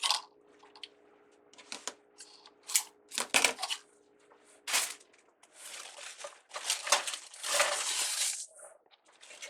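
Craft ribbon being handled while tying a wreath bow: rustling and crinkling in irregular bursts, with a few sharper snaps and a longer rustle near the end.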